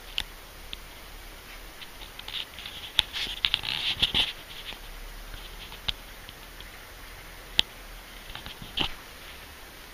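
Kitten moving about right at the camera: light paw taps, claw scratches and fur rustling, busiest around the middle, with a few single sharp clicks.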